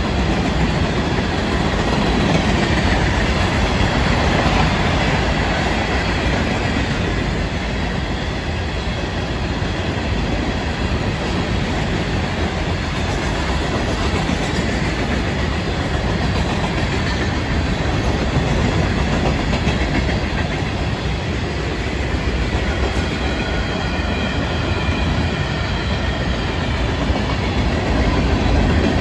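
Florida East Coast Railway freight train rolling past, its cars' steel wheels running steadily over the rails.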